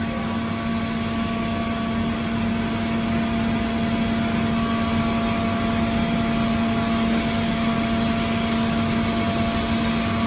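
Steady machinery hum with a constant low tone and fainter higher tones over an even noise.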